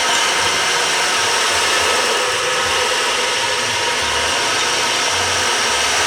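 A gong played continuously in a loud, sustained wash: many ringing metallic tones over a rushing noise, with soft low thuds underneath.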